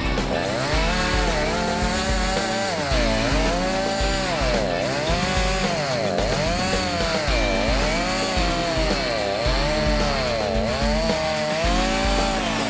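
Background music: a repeating melody that swoops up and down in pitch, over held bass notes that change every second or two.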